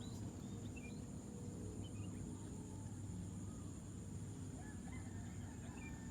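Outdoor waterside ambience: a steady high-pitched drone with scattered short animal chirps and calls, over a low steady rumble.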